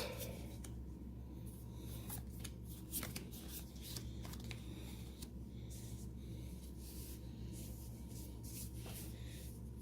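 Magic: The Gathering trading cards handled by hand, sliding and flicking through a stack with light clicks and rustles, over a low steady hum.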